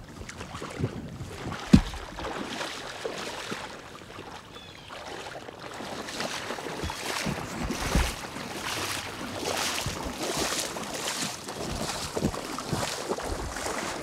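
Water sloshing and splashing as someone wades through shallow marsh water in waders, the splashes coming in a steady stride rhythm in the second half. There is one sharp thump about two seconds in.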